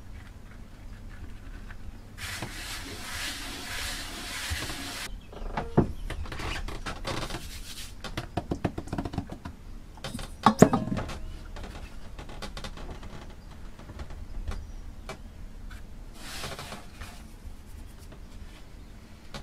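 Hands rubbing flour across a plastic cutting board and handling bread dough: scraping and rubbing with a run of small taps, and one sharper knock about ten and a half seconds in, over a steady low hum.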